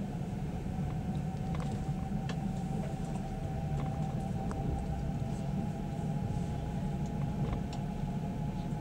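Passenger train carriage rolling slowly as the train pulls out of the station, heard from inside the car. A steady low rumble runs under a steady whining tone, with scattered light clicks and creaks from the carriage.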